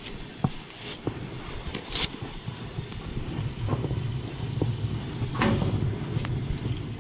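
Low steady hum of a running hot water boiler system that grows louder about halfway through, with scattered clicks and one louder knock or rustle about five seconds in.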